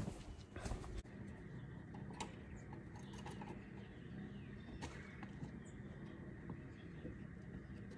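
Faint peeping of baby chicks, with a few light clicks and knocks.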